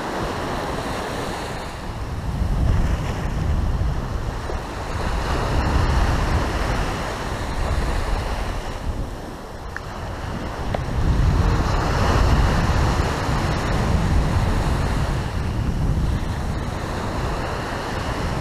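Ocean surf breaking and washing up the beach in long surges, with strong wind buffeting the microphone and giving a heavy low rumble.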